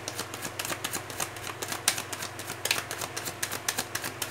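A deck of tarot cards being shuffled by hand: a rapid, irregular run of light card clicks and flicks.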